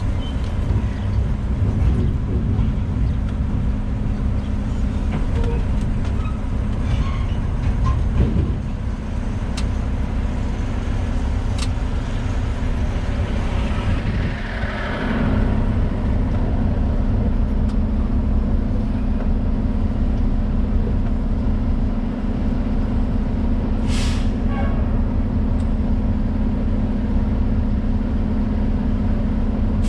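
Loaded grain semi's engine running steadily, heard from inside the cab, its low engine tone growing stronger about halfway through. A brief hiss comes about two-thirds of the way in.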